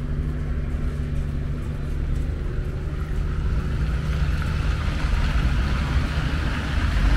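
City traffic on a wet street: a steady low rumble of passing cars, with tyre hiss on the wet asphalt growing louder from about four seconds in as cars go by.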